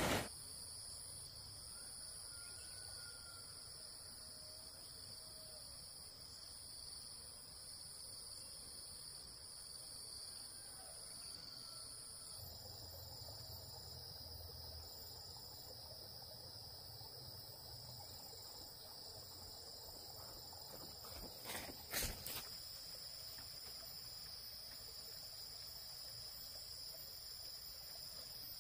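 Insects chirring in a steady, high, even drone, with a brief cluster of sharp knocks about three-quarters of the way through.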